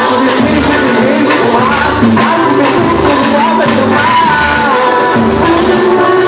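Live pagode band playing, with a voice singing a melody over hand percussion and a steady low drum beat.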